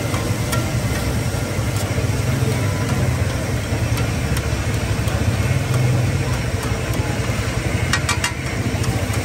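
A steady low mechanical hum, like a running engine, under a constant hiss, with a short cluster of sharp clicks about eight seconds in.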